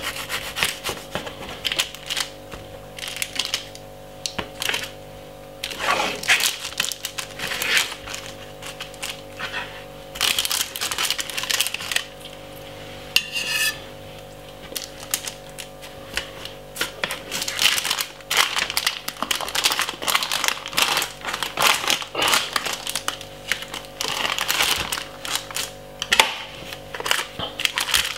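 Knife sawing back and forth through a baked sponge cake, in bursts of rasping strokes with short pauses between them.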